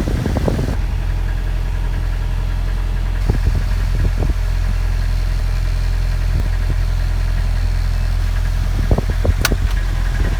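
Mercedes-Benz MB180 camper van engine running with a steady low rumble, with a few light knocks and rattles a few seconds in and again near the end, and one sharp click near the end.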